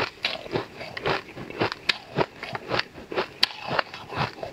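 Close-up chewing of a mouthful of crushed ice: crisp crunches at about two a second, with one sharper crack about three and a half seconds in.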